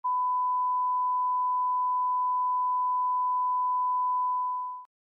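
One long, steady electronic beep, a single pure tone like a test tone, held for almost five seconds, then fading quickly and cutting off near the end.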